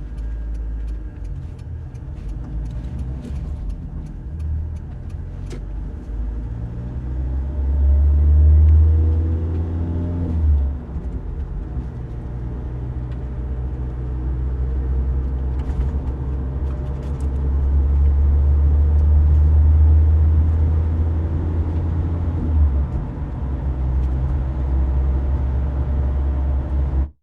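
Car driving, its engine a strong low rumble. The engine note rises as it accelerates about eight seconds in, then drops suddenly, and the sound swells again in the second half. Small ticks and clicks are scattered through the first few seconds.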